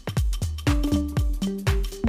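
Background electronic dance music with a steady beat of deep kick drums and held synth notes.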